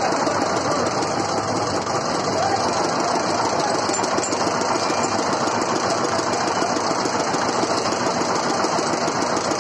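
Small stationary engine running steadily with a fast, even chugging, driving a sugarcane juice crusher as cane is fed through its rollers.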